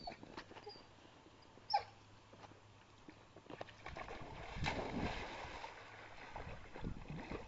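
A red heeler dog gives one short high whine, falling in pitch, about two seconds in. Then comes a stretch of water splashing as it goes into the creek and swims.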